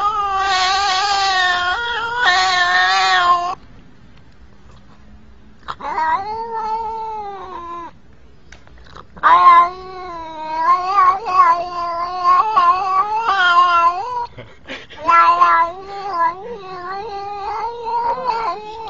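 Domestic cat meowing loudly in long, drawn-out calls that waver up and down in pitch. There are short pauses about 4 and 8 seconds in, and from about 9 seconds on the calls come thick and fast, one after another.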